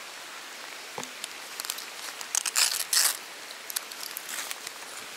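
Crinkling and rustling of wet waterproof rain gear as a zippered bag is handled and opened, in short bursts that are loudest about halfway through. Steady rain pattering underneath.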